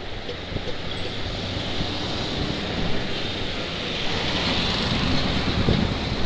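Road traffic passing on a wet road: engines and tyre noise. A truck hauling a shipping container goes by in the second half, making the rumble louder.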